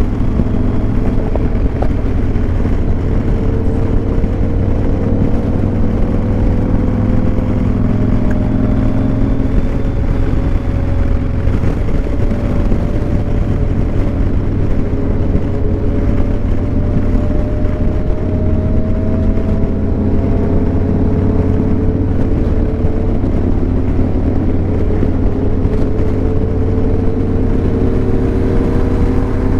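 Cruiser motorcycle engine running steadily at road speed, its pitch drifting slowly up and down with the throttle over a heavy, steady low rumble.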